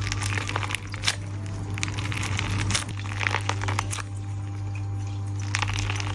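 Soft lemon-shaped stress ball squeezed by hand, giving irregular squishing and crackling sounds over a steady low hum.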